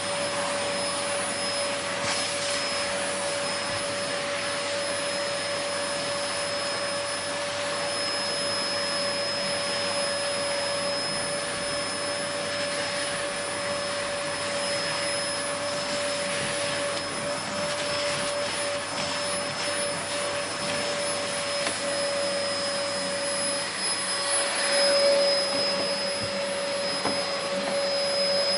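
Vacuum cleaner motor running steadily: an even rushing hiss with a constant motor whine, swelling a little near the end.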